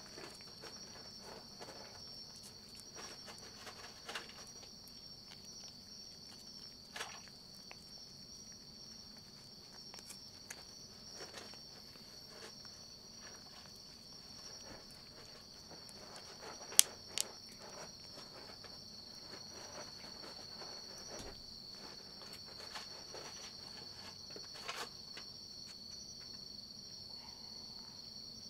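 Steady high-pitched insect chirring, with scattered faint taps and clicks and two sharp clicks about seventeen seconds in.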